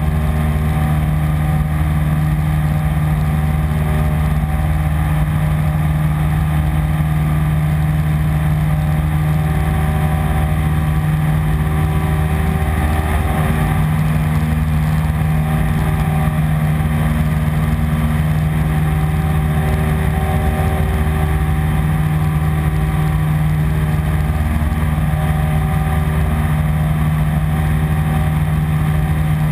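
Piper PA-15 Vagabond's small air-cooled flat-four engine and propeller in cruise, heard from inside the cabin: a loud, steady drone, with the pitch wavering briefly about halfway through.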